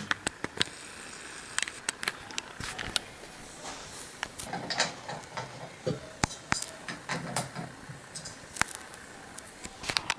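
Scattered sharp clicks and knocks over a faint steady hiss: handling noise as the camera is moved about and set up.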